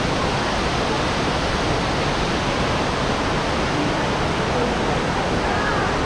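Steady rushing of water from a waterfall and the shallow stream running over rocks below it, with faint voices of people near the end.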